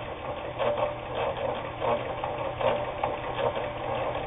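Kenmore 158.19802 sewing machine sewing with its cycle control pushed down, the speed-reducing setting for slow, careful work. The motor runs steadily under an even rhythm of needle-mechanism clicks.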